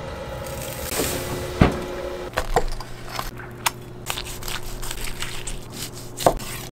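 Raw spatchcocked chicken being laid onto the metal grates of a charcoal smoker, with one sharp knock. Then a chef's knife cutting through the crisp, seasoned skin of the smoked chicken on a cutting board, with scattered crackles and clicks.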